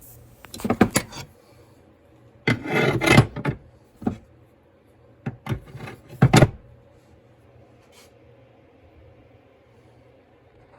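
Blacksmith's tongs being hung on a forged steel tong rack: four short bursts of scraping and rubbing over about seven seconds, then only a low steady hum.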